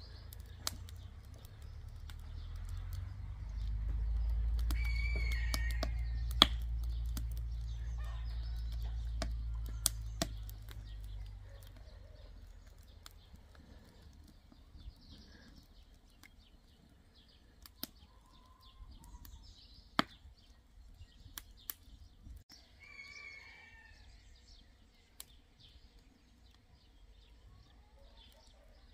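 Wood fire of kindling chips and fruit-tree logs crackling, with scattered sharp pops, the strongest near 6.5, 10 and 20 seconds in. Birds chirp briefly at about 5 seconds and again around 23 seconds, and a low rumble fills the first ten seconds or so.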